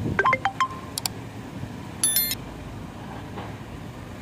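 Subscribe-button animation sound effects: a quick run of mouse clicks and short falling pops in the first second, then a bright chime about two seconds in. Under them, the steady low running of the Volvo EC210 long-reach excavators' diesel engines.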